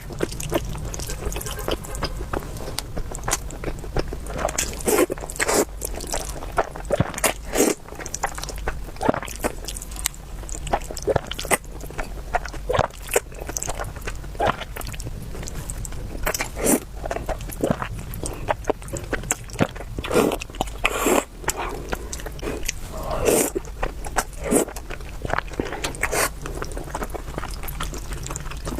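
Close-miked eating sounds: irregular wet bites, chewing and mouth smacks as a soup dumpling (xiaolongbao) is eaten.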